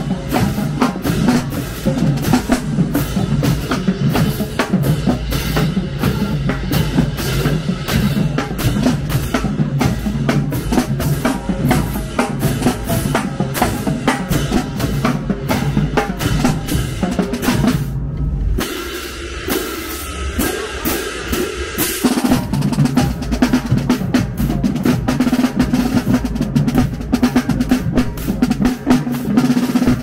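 Marching band drumline playing a street cadence: rapid snare drum rolls and strikes over tenor and bass drums, with cymbals. The rhythm thins out briefly a little past halfway, then the full line comes back in.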